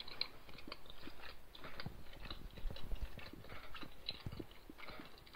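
A person chewing a bite of pizza, with quiet, irregular crunches and mouth clicks from the crisp crust.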